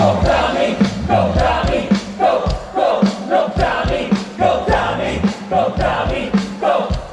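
Live trot band music with a steady beat, the crowd shouting along in rhythm.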